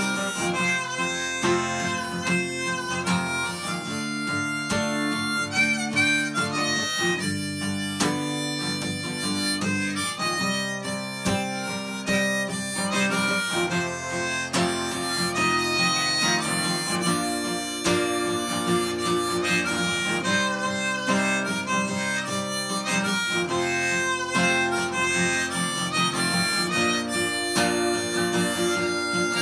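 Harmonica in a neck rack playing a continuous instrumental melody, some notes bent, over a strummed steel-string acoustic guitar.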